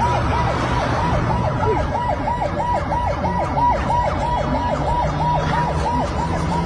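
Emergency vehicle siren in a fast yelp, its pitch sweeping up and down about three times a second, over a low engine hum.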